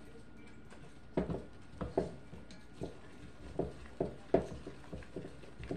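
A spoon stirring thick, sticky peanut butter fudge mixture with mini marshmallows in a pot, giving soft, irregular scrapes and knocks against the pot that start about a second in.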